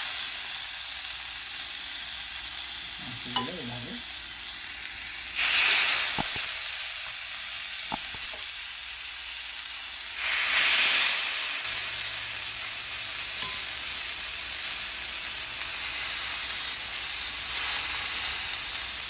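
Yogurt-marinated chicken drumsticks sizzling on a hot ridged grill pan. The sizzle swells loudly each time another drumstick is laid down, about every five seconds, with a few light clicks of metal tongs in between.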